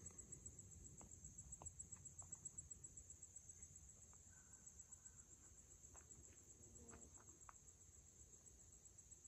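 Faint insect chorus: a steady, high-pitched trill pulsing rapidly and evenly, with a few soft ticks scattered through it.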